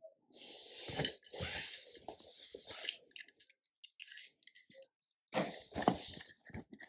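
Leftover laminate-floor underlay being cut and torn away along the base of the wall: two spells of scraping, tearing noise with a quieter stretch of small clicks in the middle.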